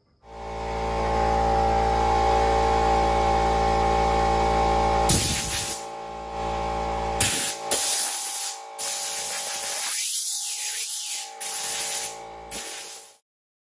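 Air compressor motor running steadily, then compressed air hissing from a blow gun in a series of short blasts as wet RC truck parts are blown dry.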